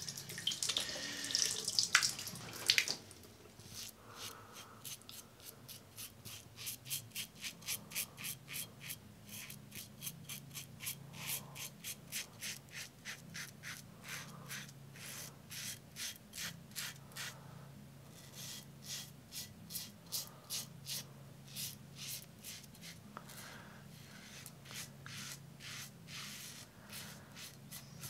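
A tap runs for the first few seconds. Then a Tatara Masamune safety razor with a Super Iridium blade scrapes through lathered beard stubble in quick strokes, a few a second, in runs with short pauses. This is the first pass, shaving with the grain.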